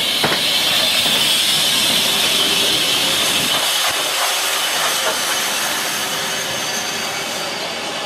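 Steam hissing from an LMS 3F 'Jinty' 0-6-0 tank locomotive as it runs slowly past, loudest in the first few seconds, then easing a little as its wooden coaches roll by.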